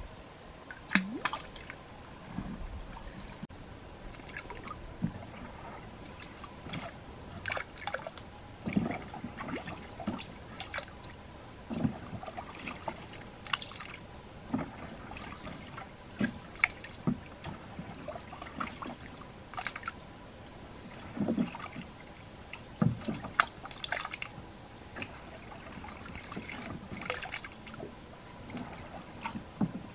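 Irregular splashing and sloshing of water with scattered knocks, one every second or two, over a faint steady high-pitched hum.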